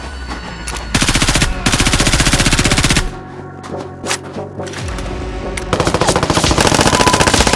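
Rapid automatic gunfire in long bursts, about a second in and again from about two-thirds through, over background music.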